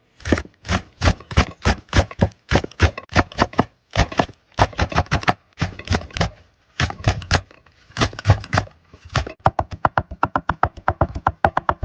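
Kitchen knife chopping vegetables on a cutting board: irregular chops a few a second, then a fast run of quick chops with a slight ring from about nine seconds in.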